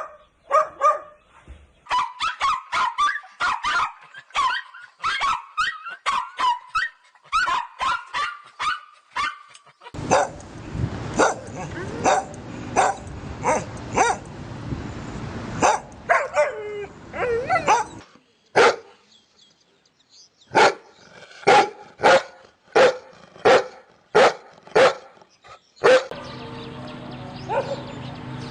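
Dogs barking in a string of separate recordings: quick, repeated barks for the first ten seconds, then barks over a steady hiss, then single barks about a second apart, then barks over a low hum near the end.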